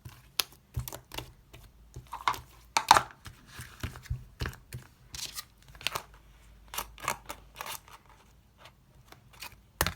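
Irregular small clicks and taps mixed with short crinkling, tearing-like rustles, as of small objects or paper being handled, with a short lull near the end.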